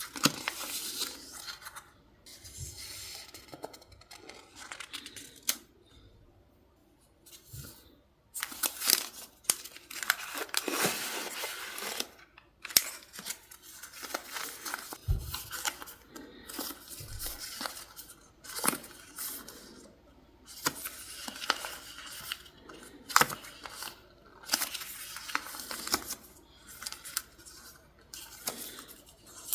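Close-up paper sounds: paper and sticker sheets being torn, rustled and crinkled in short irregular bursts, with sharp light clicks and taps. There is a quiet pause about six to eight seconds in.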